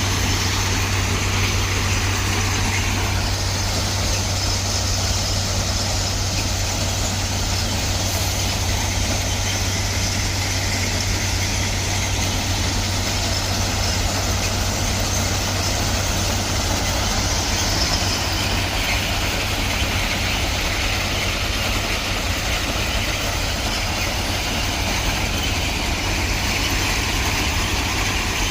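Heavy engine of a railway track machine running steadily at idle: a constant low hum with an even hiss above it.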